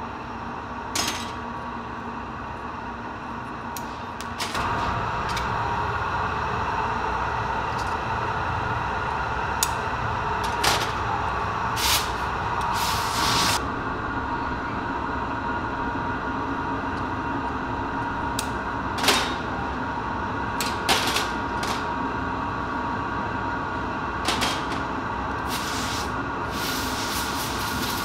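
Steady roar of workshop machinery, louder after the first few seconds, with sharp clicks and taps of glassworking tools against glass and the steel bench now and then. Near the end comes a hiss of compressed air from a blow gun aimed at the hot glass piece.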